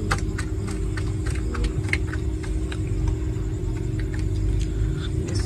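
A steady low mechanical hum, with scattered light clicks and taps over it.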